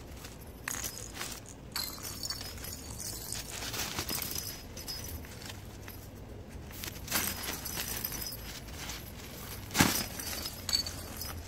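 Nylon fabric of a collapsible pop-up cat tunnel rustling and crinkling as it is handled and unfolded, with scattered clicks and light jingling. A sharp knock about ten seconds in is the loudest sound.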